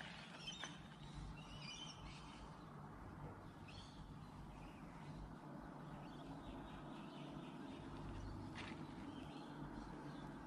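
Faint birdsong: scattered short chirps and calls over a steady low background hum.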